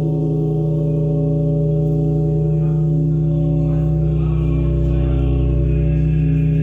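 Large Russian Orthodox church bell ringing on after a strike: a deep, steady hum with several overtones held together, some of them wavering as they beat.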